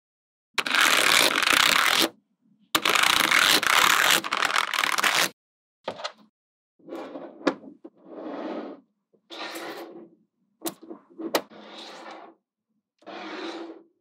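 Dubbed sound effects for stop-motion building: two long, loud scraping noises, then a run of shorter, softer scraping sounds with a few sharp clicks, each cut off into dead silence.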